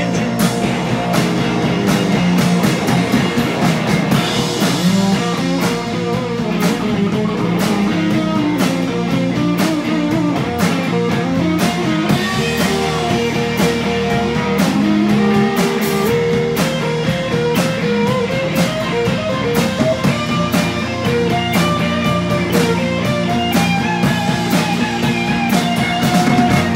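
Live rock band playing an instrumental stretch: electric guitars over bass, with a steady drum-kit beat.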